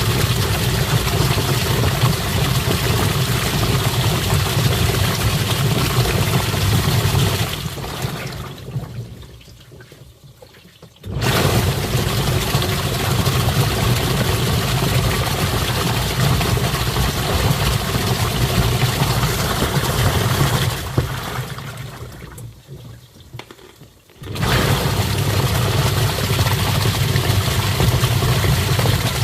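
Twin-tub washing machine's wash tub running with water: a steady motor hum and churning water that wind down twice for a few seconds and then start up again abruptly, as the wash cycle pauses and restarts.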